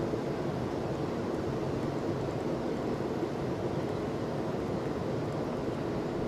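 Steady rushing of a flowing river over rocks: an even noise that does not change.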